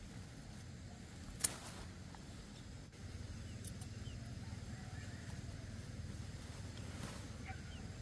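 A young pumpkin's stem snapping as it is broken off the vine: one sharp snap about a second and a half in, over a low steady rumble. A few faint chirps follow later.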